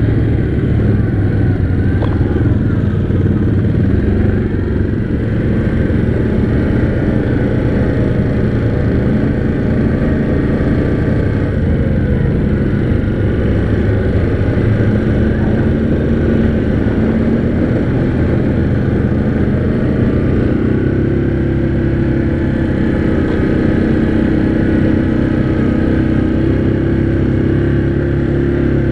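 Yamaha Grizzly 700 ATV's single-cylinder engine running steadily while riding, its pitch shifting a little up and down with the throttle.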